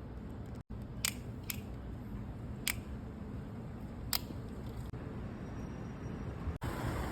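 Four short, light clicks, unevenly spaced across the first half, over a steady low background rumble.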